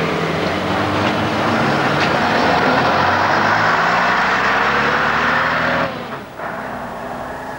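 Diesel engine of a double-decker bus running close by as the bus pulls past, a steady engine hum under loud road noise. About six seconds in the sound drops away abruptly to quieter street noise.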